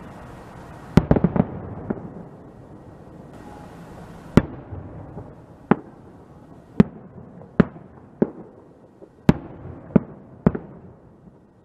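Aerial firework shells bursting: a quick cluster of bangs about a second in, then single sharp bangs roughly every second, with a low noisy rumble between them.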